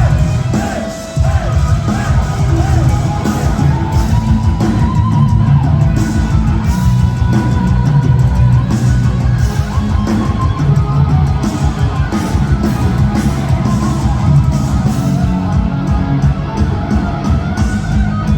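Live heavy metal band playing: an electric lead guitar carries a sustained melody over pounding drums, bass and rhythm guitar. There is a brief drop in level about a second in.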